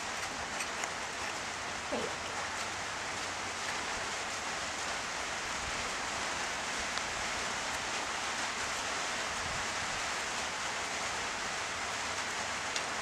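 Steady rain on a roof, an even hiss, with a few faint clicks over it.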